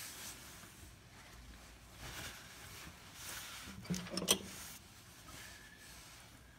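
Faint handling sounds as a hand works on the blower, with a short cluster of light clicks and knocks about four seconds in.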